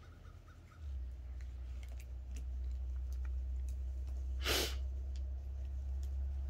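A low steady hum comes on about a second in and stays, with faint scattered light ticks. A little past halfway, one short sharp snort of breath is the loudest sound.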